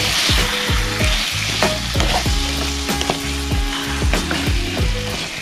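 Butternut squash curry sizzling in a hot pan as freshly added coconut milk is stirred in, with frequent short scrapes and clicks of the stirring utensil against the pan.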